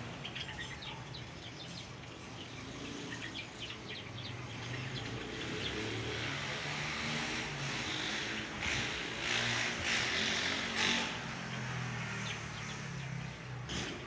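Java sparrows chirping, short scattered notes, over a steady low rumble of road traffic that grows louder through the middle.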